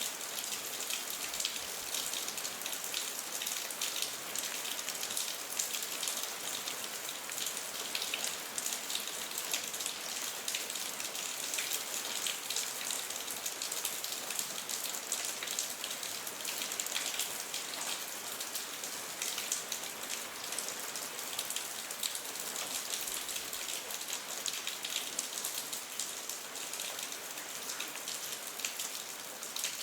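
Steady rain falling: an even, bright hiss with many small drop patters in it, with no rise or fall in level.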